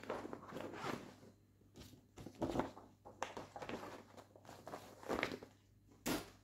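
Cross-stitch fabric and project materials being handled and set aside: a run of irregular rustling and scraping, with a short, sharp rustle near the end.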